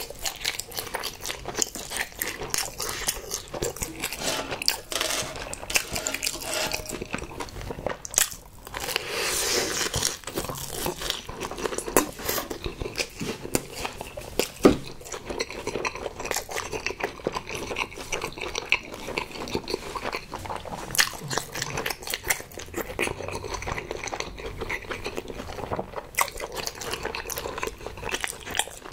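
Close-miked chewing of a breaded, deep-fried Korean hot dog: crisp crunching and wet mouth clicks in a steady, uneven stream.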